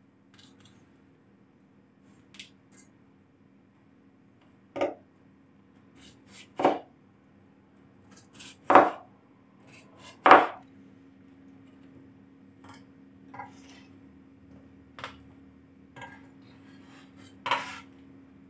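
A Chinese cleaver slicing peeled tomatoes on a wooden cutting board: slow, irregular knocks of the blade meeting the board, a handful louder than the rest. A faint steady hum runs underneath.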